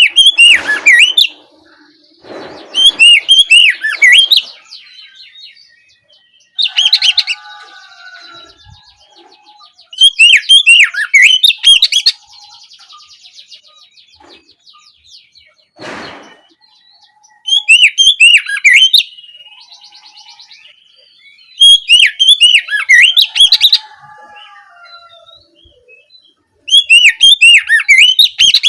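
Oriental magpie-robin singing in loud bursts of rapid, varied whistles and chirps, each phrase a second or two long and repeated every few seconds, the full open 'ngeplong' song used as a lure to provoke other magpie-robins to answer.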